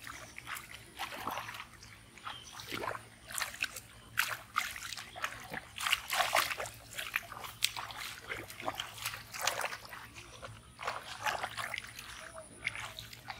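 Hands splashing and sloshing in shallow muddy water while groping for fish, in irregular short splashes.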